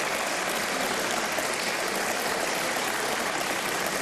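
Steady applause from many people in the chamber.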